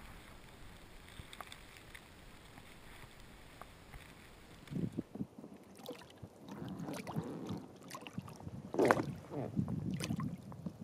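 A hooked pike thrashing and swirling at the water's surface beside the boat: irregular sloshes and splashes starting about halfway through, the loudest one near the end.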